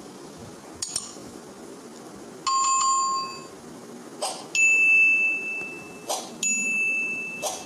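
Animated button sound effects: a double click about a second in, then a bell-like chime of about a second. Twice more, a click is followed by a held high ding tone, over a faint steady hiss.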